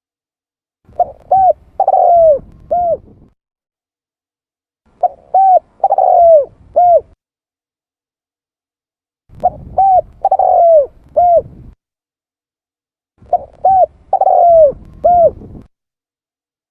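Spotted dove cooing: four phrases about four seconds apart. Each phrase has two short coos, a longer note that falls in pitch, and a final short coo.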